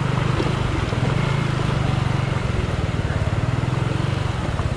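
Motorcycle engine running steadily under way, a low even hum with rapid firing pulses.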